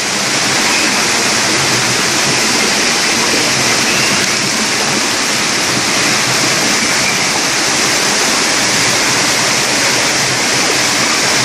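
Steady rushing of a waterfall, its water pouring and splashing with no let-up.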